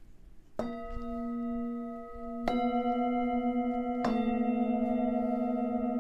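Tibetan singing bowls struck with a mallet three times, about two seconds apart. Each strike adds new ringing tones over the ones still sounding, building a layered drone with a slow wavering beat.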